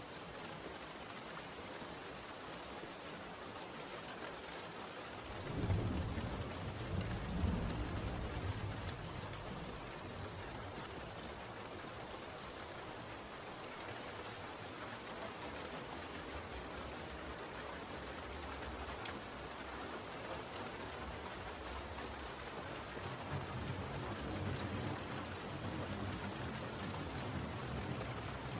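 Steady rain falling. A roll of thunder rumbles about five seconds in, swelling twice before it fades, and a fainter rumble builds near the end.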